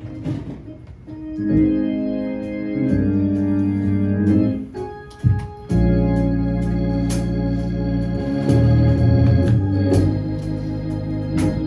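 Organ playing held chords that change every second or two, with a few sharp hits over them.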